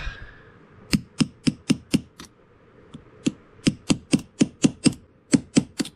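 Quick, light hammer taps, about four a second in runs with short pauses, driving a stuck broken-off piece of the cylinder crane out of a Charter Arms .38 Special revolver.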